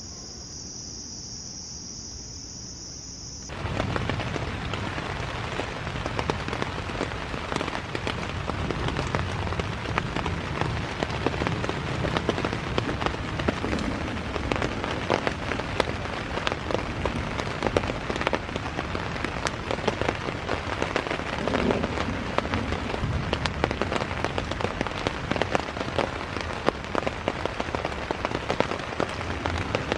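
Night insects keep up a steady high-pitched chorus. About three and a half seconds in it cuts abruptly to heavy rain pattering on a tent, a dense hiss of countless drop hits that goes on steadily.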